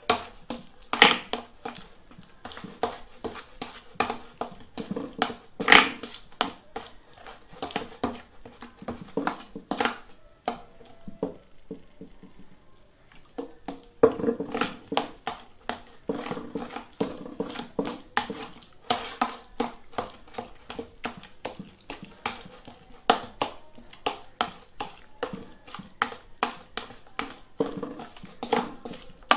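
Glue-and-baking-soda slime being mixed, making quick sticky squelching clicks several times a second, with a pause of a few seconds about halfway through.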